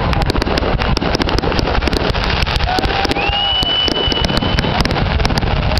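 Aerial fireworks finale: continuous booming with rapid, overlapping crackles and bangs. Partway through, a high whistling tone rises, then holds steady for over a second.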